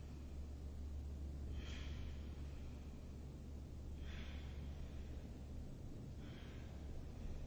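A person breathing audibly, three short hissy breaths about two seconds apart, over a steady low hum.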